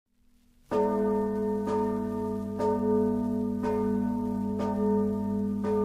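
Church bell struck six times at an even pace of about one stroke a second, starting just under a second in, each stroke ringing on under the next.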